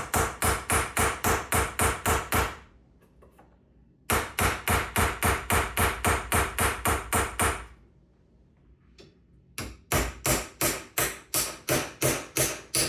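Hammer rapidly striking a small pry bar wedged under the rim of an old kitchen sink, about five metal-on-metal blows a second, in three runs with short pauses between them, to break the sink's caulk and adhesive seal.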